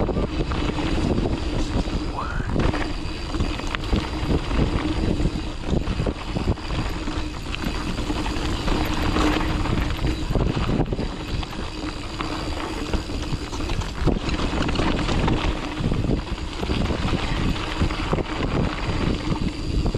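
Mountain bike rolling fast down a dirt trail: wind rushing over the microphone and a steady rumble from the tyres, with frequent knocks and rattles from bumps in the trail.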